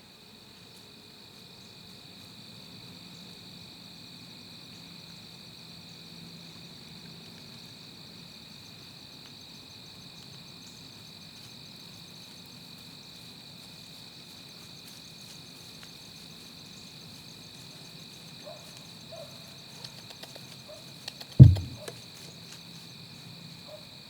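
Steady chorus of crickets and other insects. Near the end comes a single loud, short thump, the shot from the longbow.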